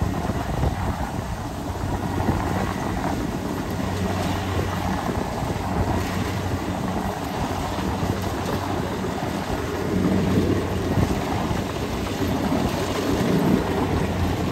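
Kubota DC-70 rice combine harvester running steadily while it cuts and threshes standing rice: an even diesel engine hum over the noise of the harvesting machinery, swelling slightly near the end.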